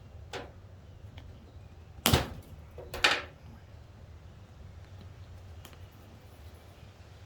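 Two sharp snaps about a second apart, with a faint click before and another after, as car-seat upholstery retainers are pried loose with a screwdriver.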